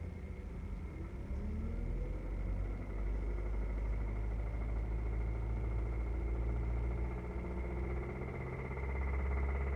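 2006 Hyundai Sonata engine running, its speed rising a little about a second in and then holding steady. It carries the knocking or ticking noise the owner is trying to identify.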